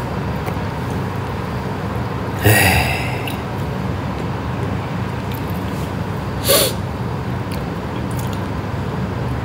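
A person eating from a bowl against a steady low background hum, with two short hissing noises, one about two and a half seconds in and one about six and a half seconds in.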